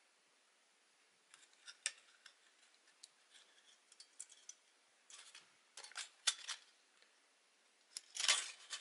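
Scattered light clicks and small scrapes of small metal and plastic parts being handled, as a carbon brush is refitted into the Agidel electric shaver's motor and its holding spring is worked back into place. The clicks come thicker about five to six seconds in, and a louder scrape follows near the end.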